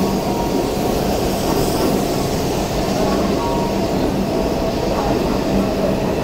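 Shinkansen train rolling slowly along the platform as it arrives, a steady rumble of wheels and running gear with a low hum.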